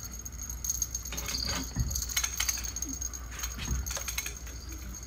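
Scattered light metallic clicks and clinks, irregular rather than rhythmic, over a steady low hum.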